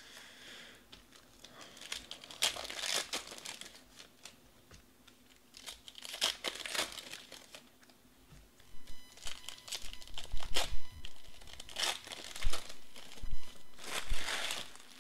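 Foil trading-card packs of 2020 Panini Select Baseball crinkling and tearing as they are pulled open by hand, in short bursts that grow louder and more frequent in the last few seconds.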